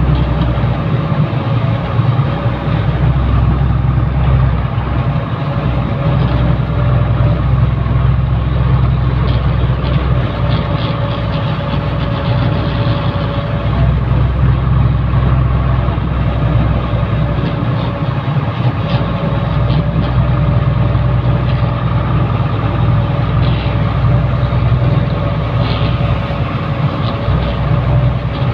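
Truck engine running steadily as heard inside the cab while driving: a continuous low rumble with a steady whine above it and a few light clicks and rattles scattered through.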